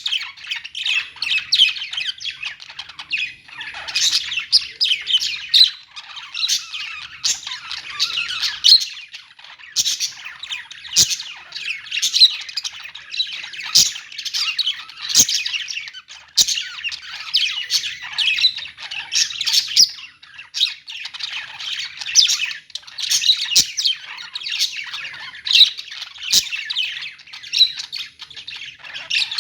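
A flock of caged budgerigars and lovebirds chattering, with dense, overlapping chirps and squawks and an occasional sharp click.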